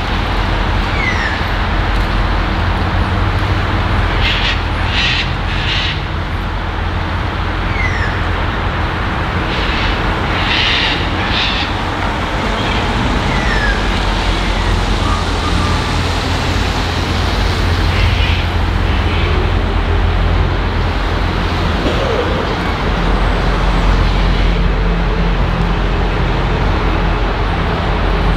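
Diesel locomotive engine running steadily with a low hum, with two spells of short air hisses, about four and ten seconds in. Birds chirp now and then over it.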